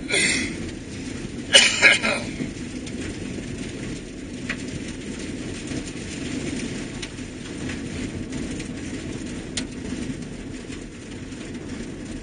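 Vehicle driving on a snowy gravel road, heard from inside the cab: a steady low rumble of engine and tyres, with a few loud rattling clatters near the start.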